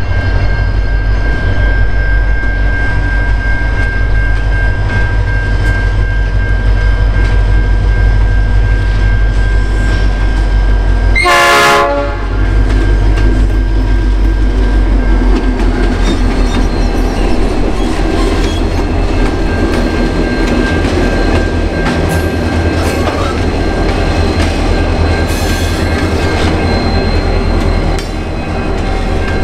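Grain train hauled by EMD diesel locomotives (a G class leading, then an XR class and a BL class) approaching and passing, the engines running with a steady low rumble and the wheels clattering on the rails. About eleven seconds in, the lead locomotive sounds its horn in one short blast of about a second.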